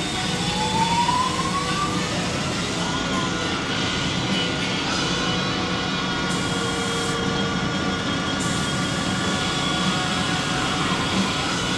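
Paint spray gun hissing with compressed air while sealer is sprayed, the hiss breaking off briefly a couple of times as the trigger is released. Under it runs a steady mechanical hum of several tones, with one tone that rises in pitch over the first few seconds and then holds steady.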